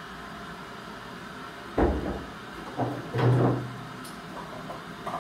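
A person eating with a fork: a couple of knocks of cutlery against a plate and chewing, with a short low hum about three seconds in.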